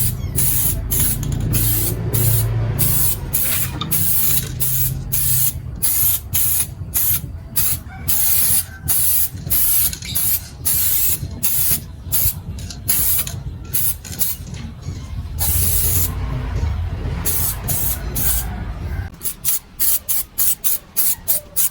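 Aerosol spray-paint can hissing in many short, quick bursts, paint being sprayed onto bicycle parts during a repaint.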